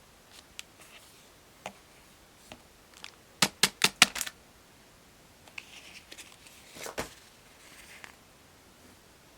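Sharp clicks and light taps from hands working small craft materials: a quick run of about six clicks around three and a half seconds in, one louder click near seven seconds, with soft rustling between.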